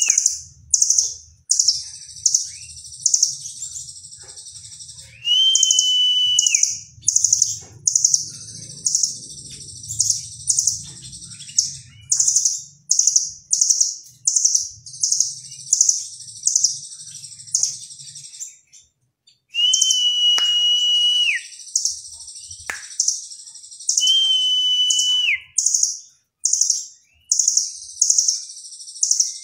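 Caged blue nuthatch (rambatan doraemon) singing: repeated bursts of rapid, high chirping notes, broken four times by a clear held whistle that drops in pitch at its end.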